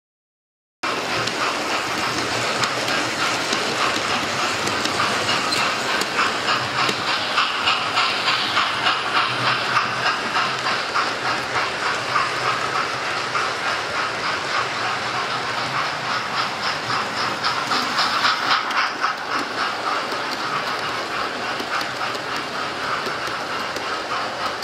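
Model railway train running along the layout track: a steady rattling of small wheels on the rails with quick, rapid clicking. It starts abruptly about a second in.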